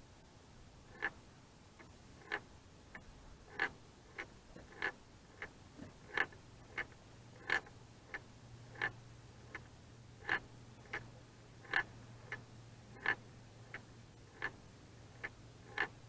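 Evenly paced sharp clicks, a stronger one about every second and a bit with fainter ones between, over a low steady hum that comes in about six seconds in.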